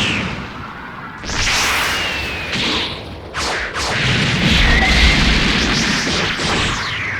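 Dragon Ball Z anime fight sound effects: a string of fast whooshes and hits, a rumbling blast, and a thin high whine over them.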